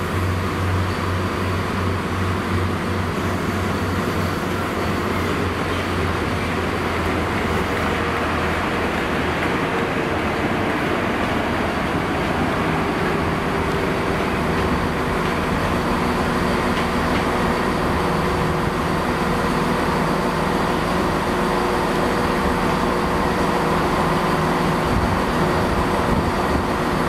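GWR High Speed Train with class 43 diesel power cars running past and pulling away. A steady diesel engine hum sits over the running noise of the wheels on the rails, with a low drone in the first third giving way to a higher steady tone later.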